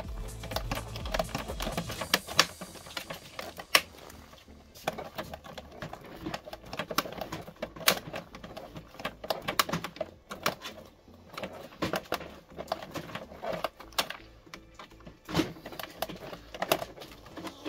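Irregular small clicks and plastic knocks from a screwdriver working at screws and parts inside the opened plastic housing of a Tchibo Cafissimo capsule coffee machine.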